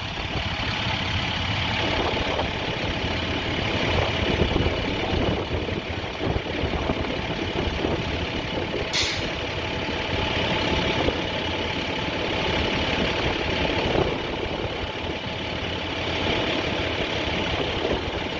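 Fire truck engines idling steadily, with a brief sharp hiss about halfway through.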